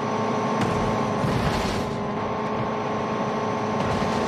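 Small electric washer pump running steadily with a hiss of spraying water, washing mud off a toy train; the motor stops about four seconds in.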